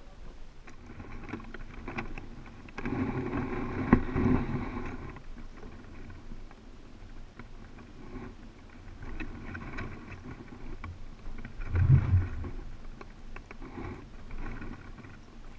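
African penguins braying: several harsh, drawn-out donkey-like calls, the loudest about three to five seconds in, with further calls later on.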